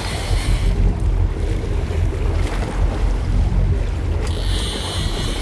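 Fishing boat's engine running steadily, a low rumble under wind on the microphone and water noise, with a thin high hiss coming in about four seconds in.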